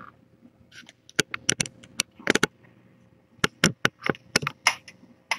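A string of sharp, irregular knocks and clicks, the sound of the camera being bumped and moved about.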